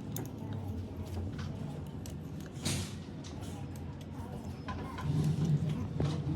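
Scattered light metallic clicks and a brief scrape from metal parts being handled, over a steady low hum that gets louder about five seconds in.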